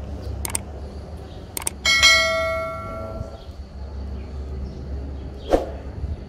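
Subscribe-button sound effect: a few mouse clicks, then a notification bell dings once and rings out for about a second and a half. A single sharp knock follows near the end, over a steady low hum of the room.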